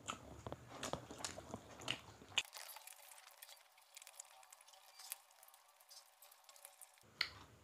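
Faint eating sounds of two people eating chicken curry and rice by hand: small irregular wet clicks from chewing and from fingers working the food, with a sharper click near the end.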